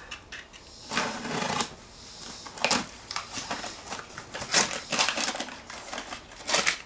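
Cardboard box being handled and opened at one end to free a rolled sheet of sound deadener stuck inside by its adhesive: irregular scraping, crackling and sharp clicks.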